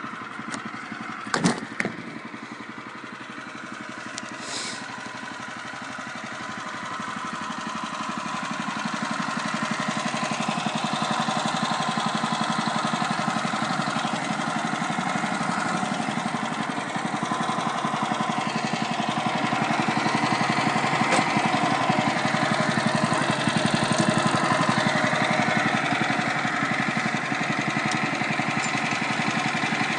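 Portable bandsaw sawmill's gas engine running steadily, driving the band blade through a black walnut log. The sound builds and gets louder about a quarter of the way in and then holds. There are a couple of sharp knocks near the start.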